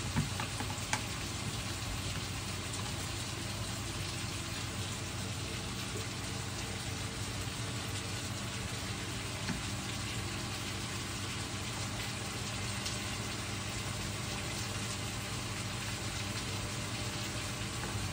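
Pork belly cubes frying in a pan, a steady sizzle with a few faint crackles, over the steady hum of an electric box fan.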